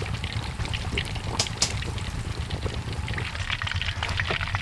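Fish frying in oil in an iron karahi: a steady bubbling sizzle with scattered sharp crackles, over a constant low rumble. It is the second fry, on a low flame, to drive the water out of the fish.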